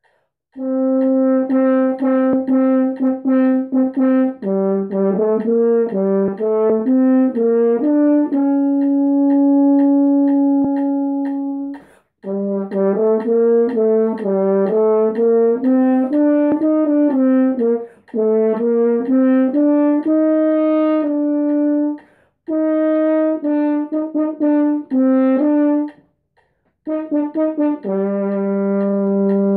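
Solo French horn playing a brisk melodic line of quick repeated notes and a few held tones, in phrases broken by several short pauses.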